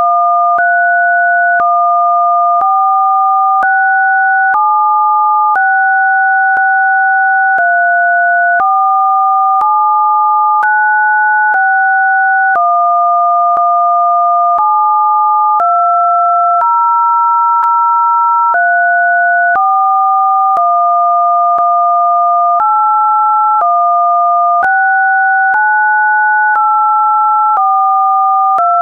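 Two electronically generated pure tones sounding together, each holding a steady pitch and then jumping to a new one every one to three seconds, with a faint click at each change.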